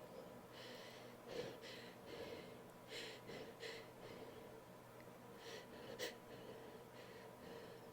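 A woman sniffling through her nose: a series of faint, short sniffs, several in quick pairs, with the two sharpest about a second and a half in and about six seconds in. She is holding back a sneeze.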